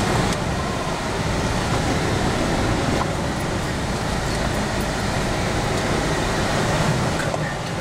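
Jeep Rubicon's engine and drivetrain running steadily, heard from inside the cabin as it creeps through a muddy, water-filled off-road trail.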